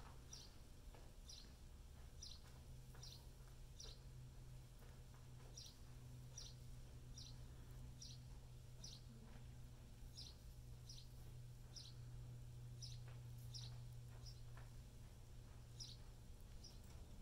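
Near silence: a steady low electrical hum, with faint, short, high chirps about once a second.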